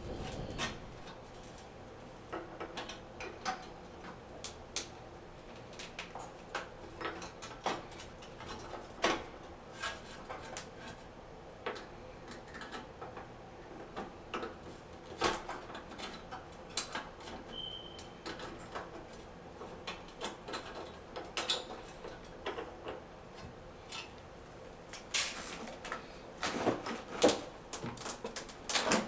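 Scattered clicks, taps and light knocks of small hardware being handled and fitted: a shower-valve repair plate with its screw and bracket set against the wall, with a few louder knocks near the end.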